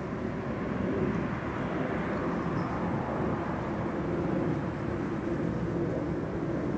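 Steady low rumble of distant engine noise, swelling slightly about a second in.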